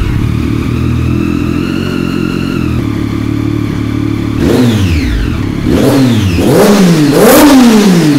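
Triumph Daytona 675's inline three-cylinder engine idling steadily just after starting. About four seconds in it is revved in several quick throttle blips, its pitch rising and falling with each.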